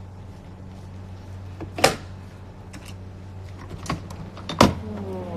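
A door being opened: two sharp knocks about three seconds apart, the second followed by a short falling creak, over a steady low hum.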